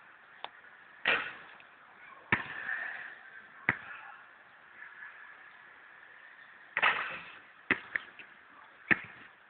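Basketball hitting the backboard, rim and court: sharp single thuds a second or more apart, about eight in all, two in quick succession near the end, some followed by a short rattle.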